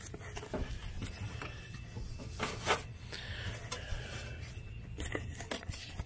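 Close rubbing and scraping handling sounds with scattered light clicks and a louder scrape about two and a half seconds in, over a faint low hum.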